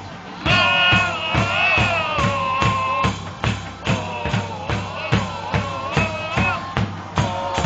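Football supporters singing a chant in unison to a steady drum beat, about two strokes a second; the singing comes in about half a second in.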